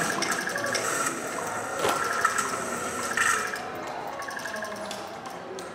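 Hissing, crackling electronic noise from a transducer-driven sound sculpture, with a few sharp clicks about two seconds in, fading steadily toward the end.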